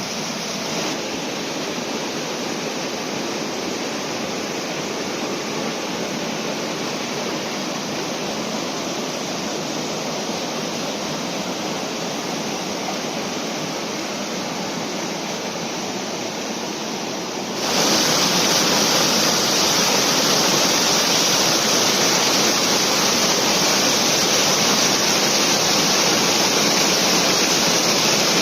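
Venford falls waterfall rushing steadily. About two-thirds in, the rush turns suddenly louder and brighter and stays that way.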